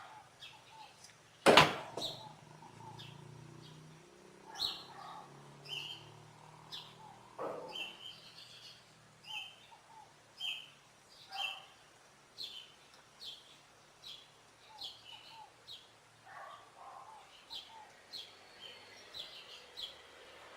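Small birds chirping repeatedly in short calls, with one loud, sharp clack about a second and a half in and a softer knock about seven and a half seconds in.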